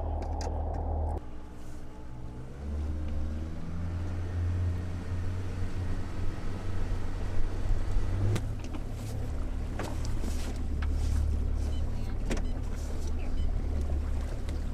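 Outboard motor running as a small fishing boat moves across the water, with a steady low rumble. Several sharp knocks sound in the second half.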